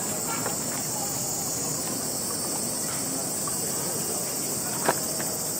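Steady high-pitched chorus of summer insects over a low murmur of street noise, with one sharp click near the end.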